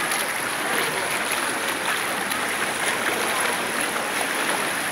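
Floodwater running steadily across a street, an even rushing noise.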